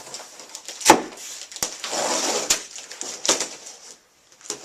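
Flat-pack wooden cabinet parts being taken out of their cardboard box: a sharp knock about a second in, then rustling and scraping of packing and a few lighter knocks.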